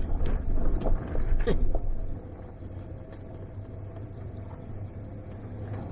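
Jeep's engine and road noise heard from inside the cab while crawling a rough, washed-out dirt road: knocks and rattles over bumps during the first two seconds, then a quieter, steady low rumble.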